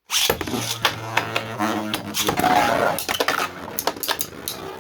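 3D-printed Beyblade spinning tops whirring and clattering in a plastic stadium, with many sharp clicks as they knock and scrape against each other and the stadium walls.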